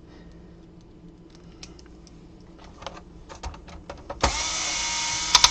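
Light clicks and taps of handling, then about four seconds in a small electric screwdriver whirs steadily for about a second and a half, removing a Phillips screw, and stops with a couple of sharp clicks.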